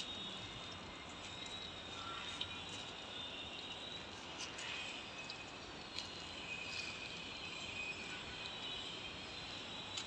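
Outdoor ambience of insects trilling steadily at a high pitch over a soft background hiss, with a second, slightly lower trill joining about two-thirds of the way through and a few faint ticks.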